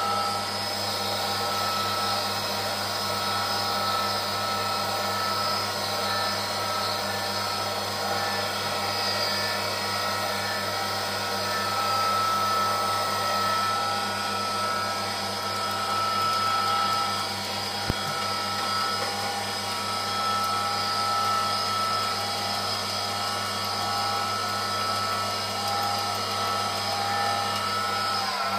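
Small benchtop metal lathe running, its motor and gearing giving a steady whine made of several held tones over a low hum. A single sharp click about two-thirds of the way through.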